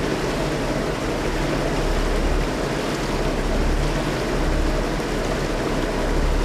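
Motorboat engine running steadily while under way, a low drone under an even rush of noise.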